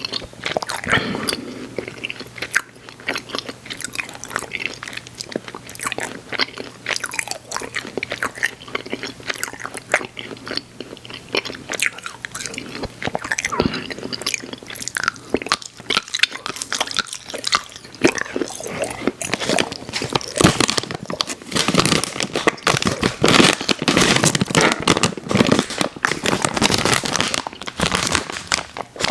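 Close-miked chewing and biting of chewy Airheads Xtremes sour candy: wet mouth sounds full of small clicks and crunches, growing louder and denser about two-thirds of the way through.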